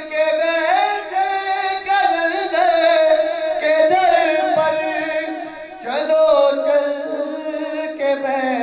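A man singing a devotional Urdu recitation (manqabat) into a microphone, drawing out long notes that slide and waver in pitch. There is a short break for breath about six seconds in, then he sings the next phrase.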